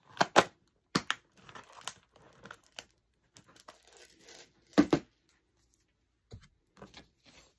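A small clear plastic box and leather-fringed pouch pieces being handled on a table. There are sharp plastic clicks and knocks, loudest at the start and again about five seconds in, with crinkling and rustling between.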